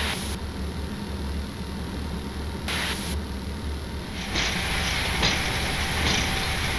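Steady low hum inside an airliner cockpit. A little over four seconds in it gives way to the louder, rushing noise of a Boeing 777-300ER's engines and wheels at the start of its takeoff roll, with a few faint thumps.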